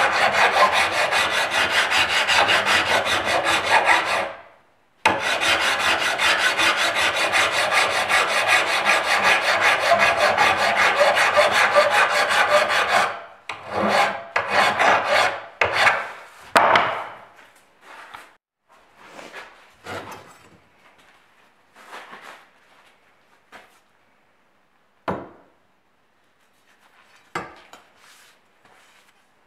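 Hand file rasping along a steel machete blade, cutting the bevel by hand. Fast continuous strokes stop briefly about four seconds in, then run on until about thirteen seconds in. A few slower separate strokes and scattered knocks and scrapes follow as the blade is handled.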